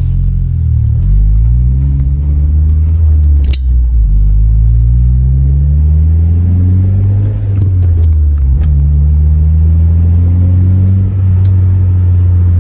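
Honda Civic Si's K24 four-cylinder engine accelerating through the gears with a Full Race cat-back exhaust, heard from inside the cabin with the windows down. The pitch climbs, drops briefly with an upshift about three and a half seconds in and again around eight seconds, then climbs and settles. The note is a low rumble that sounds super quiet for an aftermarket exhaust.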